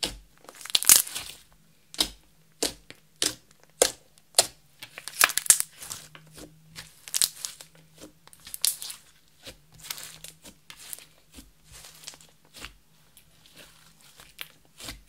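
Thick glossy slime made from clear slime mixed with makeup and glitter, being kneaded, folded and squeezed by hand, giving off irregular sticky pops and clicks with a few longer crackling squelches.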